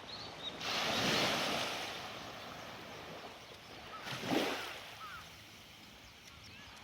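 Waves breaking on a beach: one wave crashes and washes up about half a second in, and a smaller one breaks about four seconds in.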